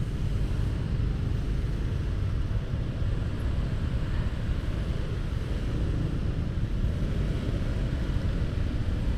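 Motorcycle and surrounding vehicles in a congested city traffic jam: a steady low rumble of engines and traffic, heard from the rider's own bike.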